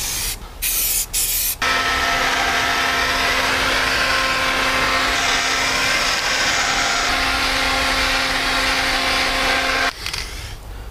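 An aerosol can of etch primer gives a few short sprays. Then an electric heat gun is switched on and runs steadily for about eight seconds, its fan hum and rushing air flashing off the fresh paint, before it cuts off suddenly near the end.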